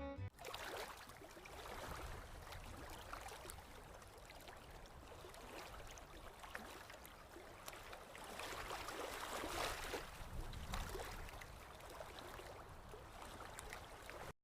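Faint running water of a small stream, a steady rushing that swells a little partway through.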